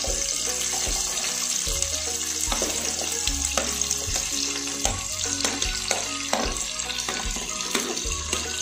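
Chopped onions dropping into hot oil in a pressure cooker and sizzling, with scattered clicks of a steel spoon scraping them off a plate.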